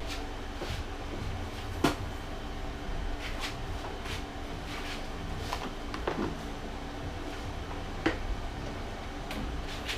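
A handful of light knocks and clicks from parts being handled and set down, spaced irregularly, the sharpest about two seconds in and near the end, over a low steady hum.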